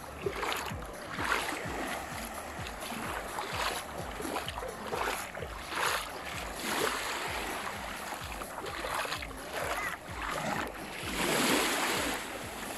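Small sea waves lapping and washing onto a sandy shore, swelling and easing in turn, with one fuller wash near the end.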